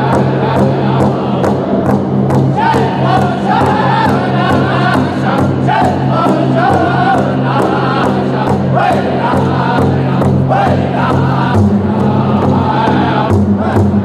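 A powwow drum group of men singing together in chant-like voices over a big drum that they strike in unison with a steady, even beat.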